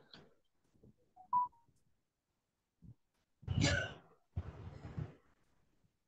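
A person coughing twice, in short rough bursts about three and a half and four and a half seconds in, after a brief high blip a little over a second in.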